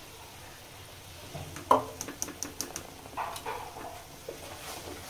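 Kitchen utensils knocking as a spoon of ghee is shaken off into a kadai of thick halwa: a sharp clink, then a quick run of about five light taps, followed by a spatula scraping and knocking through the paste.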